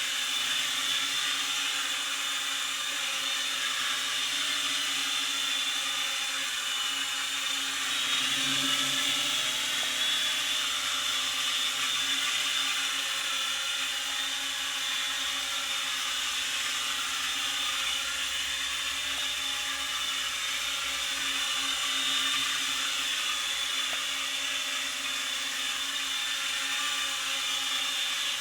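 Small toy quadcopter drone's electric motors and propellers running with a steady high-pitched whine, swelling slightly about eight seconds in.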